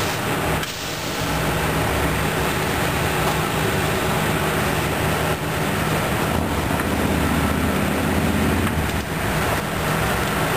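A fire engine's engine running steadily over an even rushing noise from the burning pickup truck. About seven seconds in, a drone rises in pitch for a couple of seconds.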